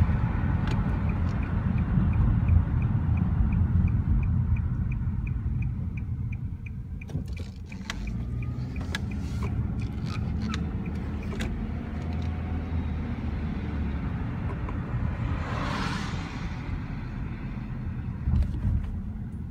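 Car on the move: steady low road and engine rumble, which drops somewhat in level after about eight seconds. A light regular ticking comes about three times a second over the first six seconds, a scatter of sharp clicks and knocks follows around the middle, and a brief whoosh comes about three-quarters of the way through.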